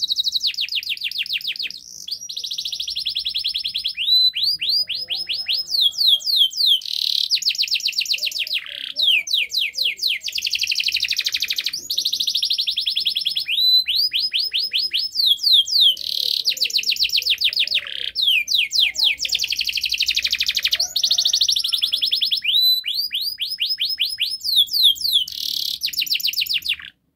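Domestic canary singing a long, unbroken song of rapid trills, one run of fast repeated notes after another with barely a pause, until it stops suddenly near the end.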